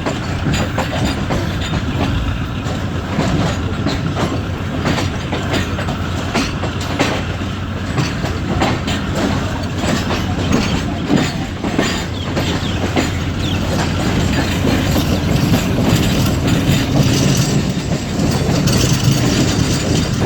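Passenger train wheels clattering over rail joints and points as the express pulls out, a quick, irregular clickety-clack over a continuous rumble. It grows a little louder in the last few seconds.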